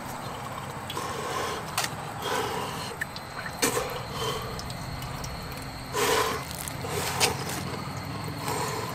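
Drinking-fountain water splashing against a man's mouth as he drinks straight from the stream, with slurps and gasping breaths every second or so, the loudest about six and seven seconds in. He is gasping from a mouth burning with chili heat.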